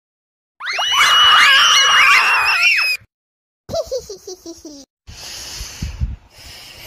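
Several high-pitched cartoon voices screaming together for about two seconds, then cutting off at once. A short laugh of falling notes follows, then a noisy stretch with a few low thumps.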